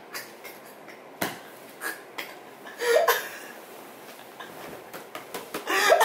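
A man laughing out loud in two short bursts, about three seconds in and again near the end, among scattered sharp taps and rustles as he thrashes about in bed.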